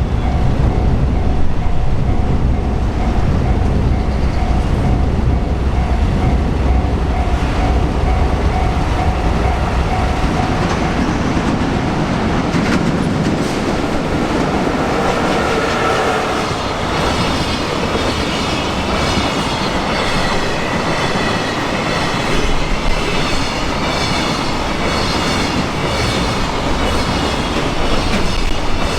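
Freight train rolling through a level crossing, its wheels clacking steadily over the rail joints, with wheel squeal rising in the second half.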